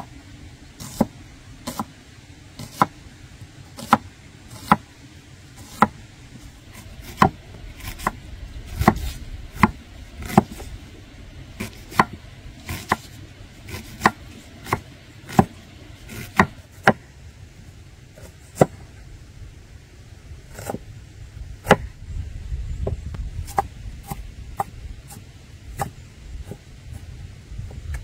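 Knife chopping food on a wooden cutting board: single sharp strokes about once a second, unevenly spaced, with a short pause about two-thirds of the way through.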